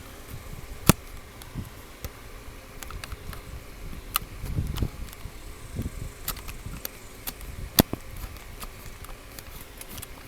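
Handling noise of a taped wiring harness being pulled back and forth through a steering column: scattered light clicks and rubbing, with two sharp clicks about a second in and near the end.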